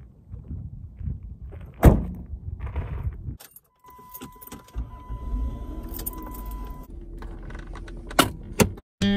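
Minivan rear liftgate slammed shut with a single loud bang. Then keys jangle at the ignition under a steady high warning tone, and near the end two sharp clicks as the hand-release parking brake is let off.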